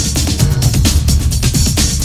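Music with a steady beat and heavy bass.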